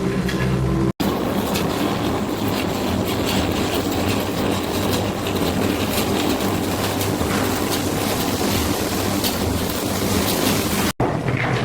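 Factory machinery running: a steady hum, then after an abrupt cut about a second in a dense rushing clatter dotted with clicks, which cuts back to a steady hum near the end.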